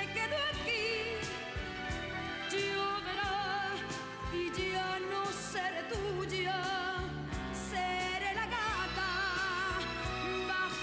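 A female vocalist singing a romantic ballad in long held notes with wide vibrato, backed by a band with piano, guitars and drums.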